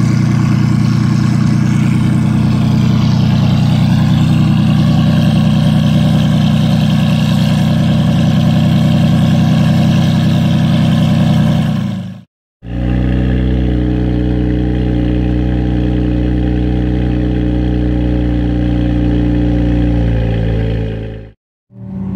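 A sports car engine running loudly through its exhaust at a steady, unchanging pitch. It fades out about twelve seconds in and, after a brief silence, a second stretch of steady engine running follows, cut off near the end.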